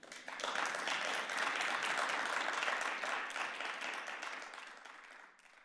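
Audience applauding, rising quickly to a steady clapping, fading over the last couple of seconds, then cutting off abruptly.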